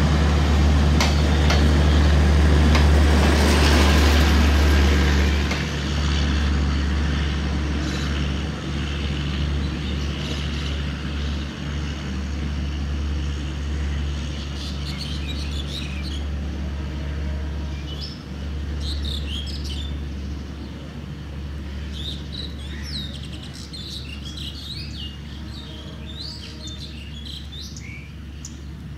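Passenger coaches of an express train rolling past and away on broad-gauge track, their wheel and rail noise loud for the first few seconds and then fading steadily. Birds chirp from about halfway through, over a low steady rumble.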